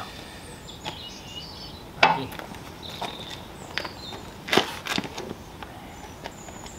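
A handful of sharp wood-on-wood knocks as timber frame members are fitted together, the loudest about two seconds in and two close together near the five-second mark, with short high bird chirps in the background.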